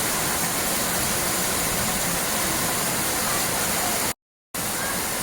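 Steady rush of flowing water, a waterfall or fast stream, cut by a sudden half-second dropout to total silence about four seconds in.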